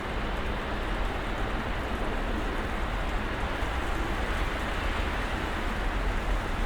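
Snowstorm ambience: a steady, even hiss with a low rumble underneath and no distinct events.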